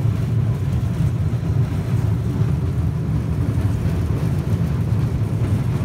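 Tourist road train moving along at a steady pace, heard from inside its open-sided passenger carriage: a continuous low drone of the drive with no change in pitch.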